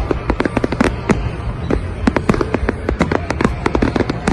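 Fireworks display in full flow: rapid, overlapping bangs and pops, several a second, over a constant low rumble of distant booms.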